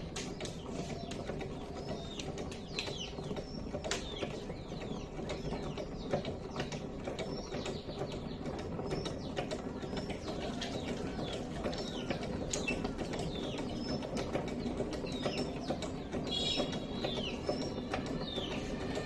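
Small birds chirping again and again over a steady low background noise, with a few sharp clicks. A stronger, clearer bird call comes in near the end.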